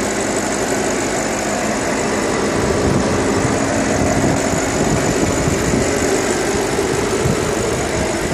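BMW Alpina B6's twin-turbo 4.4-litre V8 idling steadily, heard close over the open engine bay.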